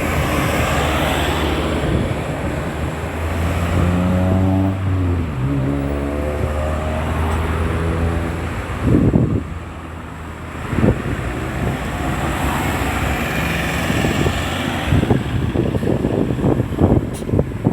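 Road traffic passing: a vehicle's engine pulls away and climbs in pitch again after a gear change, followed by cars whooshing past on the tyres. Wind buffets the microphone in gusts near the end.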